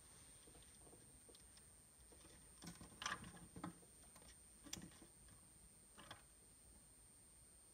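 Near silence broken by a few faint clicks and rustles of fingers handling a model railway coach and its wiring, between about three and six seconds in.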